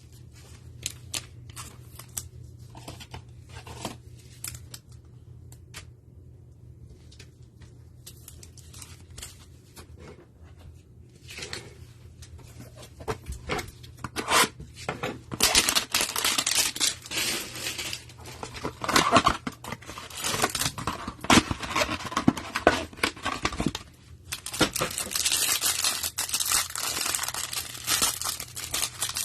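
2021 Panini Prizm football hanger box packaging being torn open: cardboard and plastic wrapper tearing and crinkling. Scattered soft handling clicks come first, then the tearing and crinkling grows dense and louder about halfway through.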